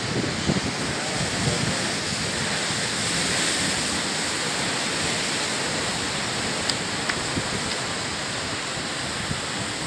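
Sea waves washing and breaking against a rocky shore, a steady rushing noise that holds at an even level throughout.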